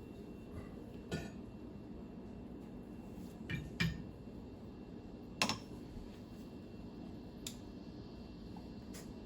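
Metal tools and hardware clinking and knocking as a stern drive's hydraulic trim rams are being refitted: about six separate clanks, the sharpest about five and a half seconds in, over a steady low hum.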